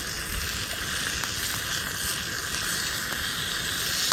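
Marinated beef kalbi and garlic shoots sizzling as they cook: a steady hiss with a few faint pops.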